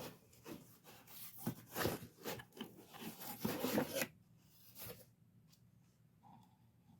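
Packaging rustling and scraping as the cordless random orbit sander is lifted out of its box: a run of irregular crinkling and rubbing strokes for about four seconds, then only a few faint handling noises.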